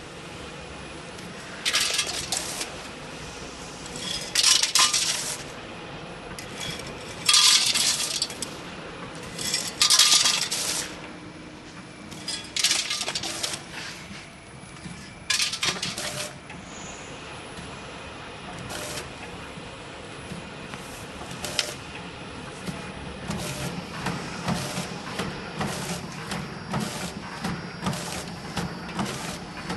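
Vertical chain-bucket packing machine running, with loud metallic clattering bursts every two to three seconds. About two-thirds of the way through, a steady low hum sets in with quick, evenly spaced clicks, about two a second, as the machine cycles through its bags.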